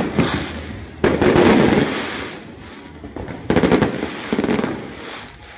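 Fireworks display: salvos of comets and crackling shells going off in sudden loud volleys of rapid pops. There is a bang at the very start, a big volley about a second in that fades away, and two more volleys in the second half.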